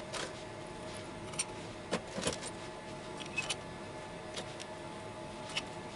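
Light metallic clicks and clinks of small motorcycle clutch parts being fitted into place by hand, about eight separate ticks spread out over a faint steady hum.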